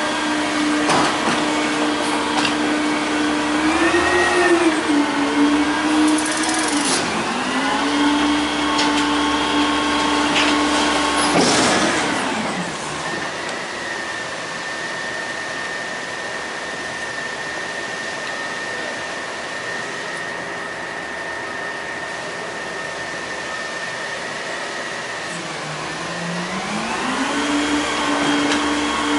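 Front-loader garbage truck's engine running at raised revs to drive the hydraulics, its pitch sagging under load a few seconds in. About twelve seconds in it drops back to a lower, steady run with a thin high whine, then revs up again near the end as the hydraulics take up the next lift.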